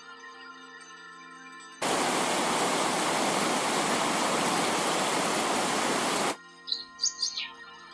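Soft background music, interrupted about two seconds in by a loud, steady rushing hiss like static or falling water that cuts off abruptly about four seconds later. Near the end, bird chirps come in: short, quick, falling calls.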